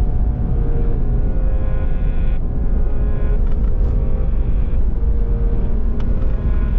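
Car driving on a snowy road, a steady low rumble of engine and tyres heard from inside the car.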